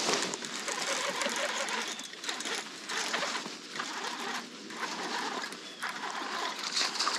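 Baitcasting reel cranked steadily, whirring with uneven surges, as a hooked small largemouth bass is reeled in.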